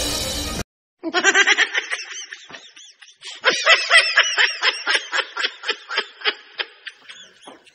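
A person laughing in a long string of quick, rhythmic ha-ha pulses, about five a second, starting about a second in.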